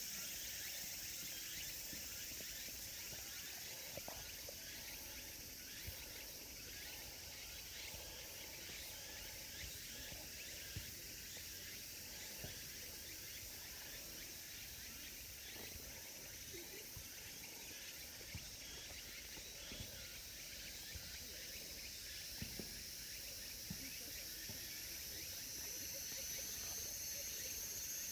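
Steady high-pitched chorus of insects, with faint scattered light taps and clicks now and then.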